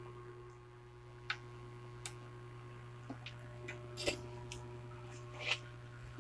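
Faint, irregular small clicks and taps, about half a dozen, from hand work soldering a replacement filter capacitor onto a CRT TV's power supply board. A steady low mains hum runs underneath.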